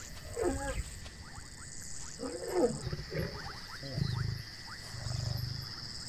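Lions calling: two pitched calls that rise and fall in the first three seconds, then a few shorter calls and low grunts. A steady high chirring of crickets runs underneath.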